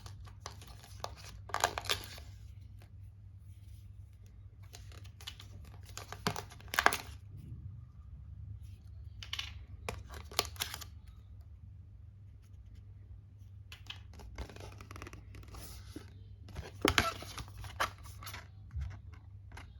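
Apple AirTag packaging being opened by hand: paper tearing and wrapping crinkling in short separate bursts, with pauses between.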